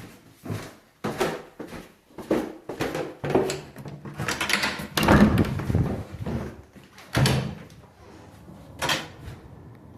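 A string of irregular bumps and rustles, about one or two a second, loudest about five seconds in, with a last sharp one near the end.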